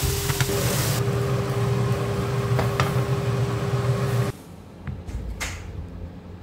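Pork and vegetables sizzling in a nonstick frying pan under a steady hum, with a few scrapes and taps of a wooden spatula. About four seconds in, the sound drops suddenly to a quiet room with a single short knock.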